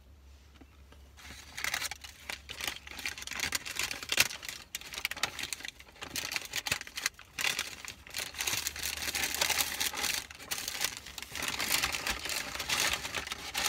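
Paper fast-food packaging crinkling and rustling as it is handled, starting about a second in and going on as an irregular crackle.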